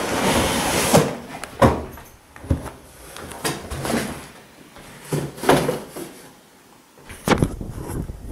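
Cardboard packaging being opened and handled: a scraping slide of cardboard in the first second, then a string of irregular knocks and thuds as the box lid and contents are moved.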